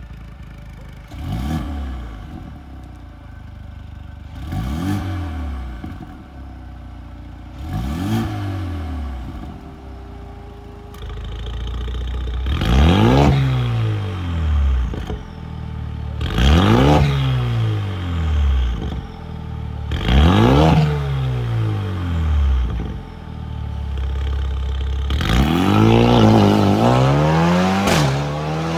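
Mercedes-AMG A35's 2.0-litre turbo four-cylinder through a Fi Exhaust valvetronic cat-back with a catless downpipe: three short free revs with the exhaust valves closed, then three louder revs with the valves open. Near the end the car pulls away under hard acceleration, its engine pitch climbing, dropping briefly and climbing again.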